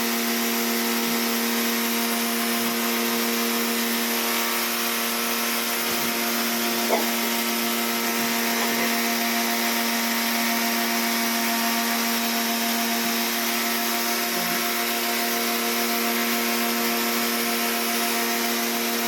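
Kawasaki pressure washer running steadily under load: a constant motor hum over the loud hiss of the high-pressure water spray.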